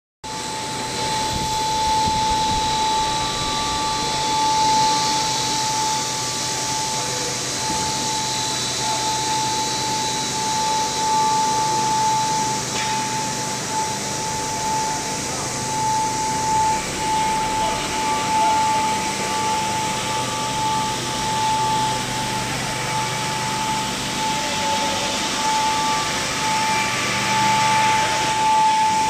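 Plastic recycling pelletizing line running: steady machinery noise of extruder and motors with a constant high whine.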